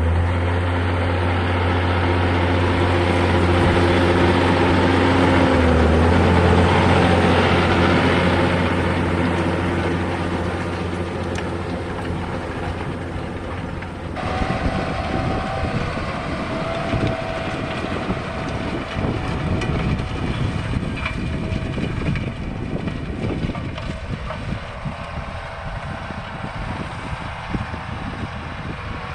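John Deere tractor engine running as it works across the field, growing louder to a peak then fading, with a dip in pitch partway through. About halfway it changes abruptly to a fainter tractor engine heard under heavy wind buffeting on the microphone.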